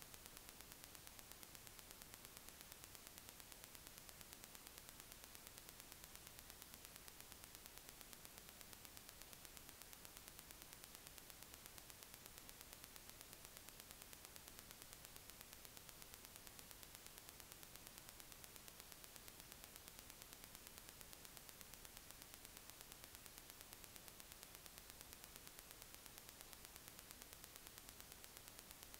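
Near silence: a faint, steady hiss of the recording's noise floor.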